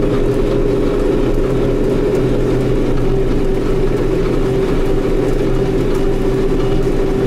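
Tractor engine running steadily under way in the field, heard from inside the closed cab, with a steady whine over the engine note.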